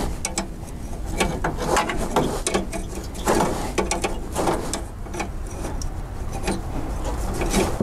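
Hand wrench working a transmission cooler line fitting under the car: a run of irregular metallic clicks and scrapes as the tool is worked back and forth.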